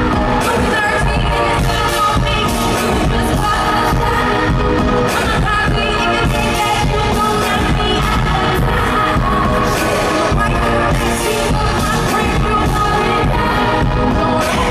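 Live pop concert: a woman singing into a handheld microphone over a loud band with a heavy, steady beat, heard from the audience.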